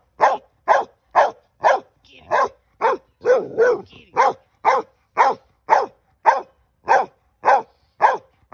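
An Australian Shepherd barking steadily at a snake it has found, about two sharp barks a second.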